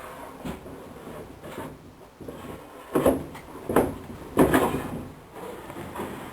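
Wood being handled and knocked: irregular knocks and short scraping strokes, three louder ones a little under a second apart in the second half.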